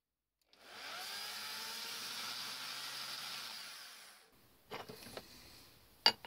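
Milling machine's spindle motor running quietly and steadily for about three seconds, then fading away. A few light metallic clicks follow near the end as parts are handled.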